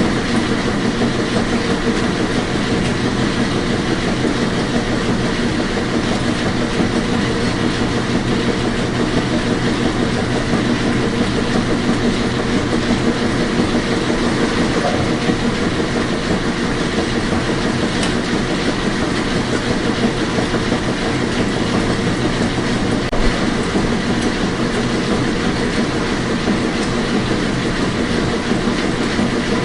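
Washing machine running steadily: a continuous mechanical rumble and whir, with a brief low knock about 23 seconds in.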